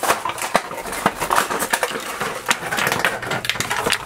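Clear plastic packaging crinkling and rustling in a dense run of irregular crackles as hands unwrap bagged toy figures. It stops near the end.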